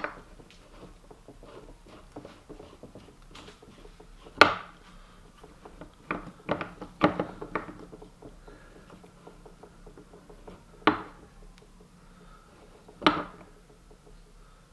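Sporadic clinks and small clicks of steel suspension trailing arms and a measuring tool being handled and adjusted on a bench, with about four sharper clanks spread through.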